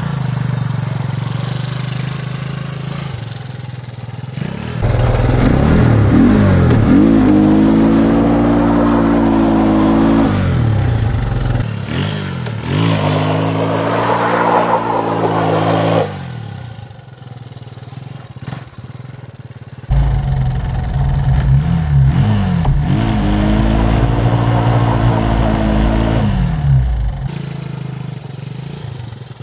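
A 350cc Yamaha-engined go-kart revving as it is driven through donuts. The engine note climbs and holds high in two long loud stretches with a shorter rev between, drops back to a lower sound in the lull, and fades near the end.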